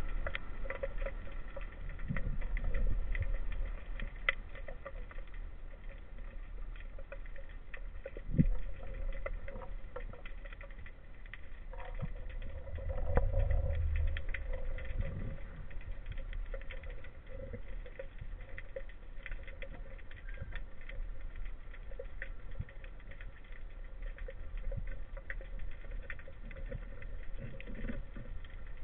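Underwater ambience picked up through a waterproof camera housing: a low, muffled rumble with a steady faint hum and frequent small clicks and crackles, and a few louder low thumps and swells.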